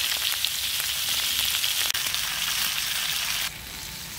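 Butter sizzling and frying in a hot pan, a steady crackling hiss that drops in level about three and a half seconds in.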